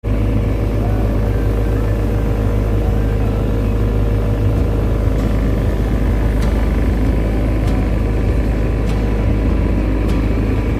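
Engine running steadily with a deep, constant rumble and a faint steady hum above it.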